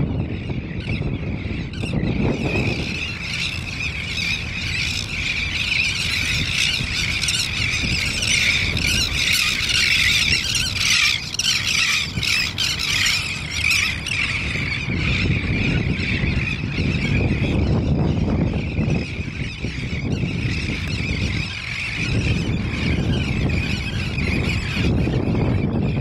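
A large flock of elegant terns calling together: a dense chorus of overlapping harsh, high squawks, thickest in the middle and thinning later, over a steady low rumble.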